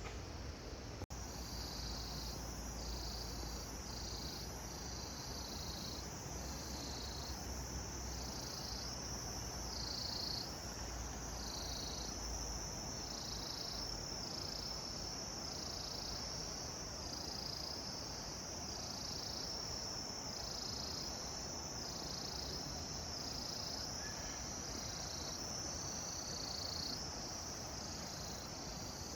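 A chorus of insects: one high-pitched trill holds steady while a second, slightly lower call pulses on and off about once a second.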